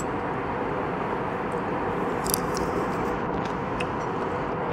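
Steady jet airliner cabin noise in flight, an even rushing hum of engines and airflow, with a few light clicks.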